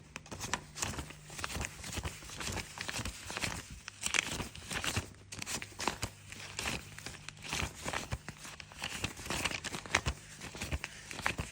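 Paper banknotes being handled and counted by hand, rustling with many quick, irregular flicks.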